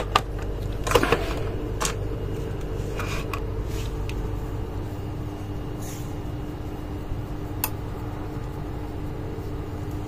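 A power plug pushed into a power-strip socket, giving a few sharp clicks and knocks in the first three seconds, over a steady machine hum.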